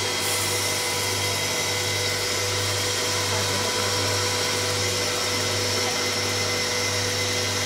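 Vertical hot air popcorn machine running: a steady blower whir with a constant low hum and a few thin steady tones above it.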